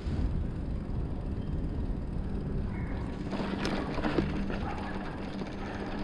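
Mountain bike riding along a street: a steady low rumble of tyres and wind, with a short rattle of the bike about three and a half seconds in.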